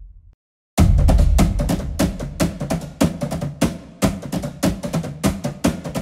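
Soundtrack music: the previous sound dies away into a brief silence, then a fast, dense percussion beat of rapid drum hits starts just under a second in.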